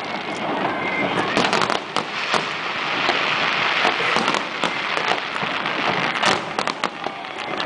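Fireworks display: a dense, continuous crackle of many small bursts with sharp pops throughout, heaviest in the middle, and a cluster of louder bangs near the end.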